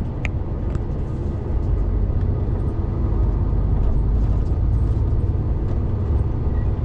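Heavy goods vehicle's diesel engine and tyre noise heard from inside the cab while driving: a steady low drone and rumble that gets a little louder about a second and a half in.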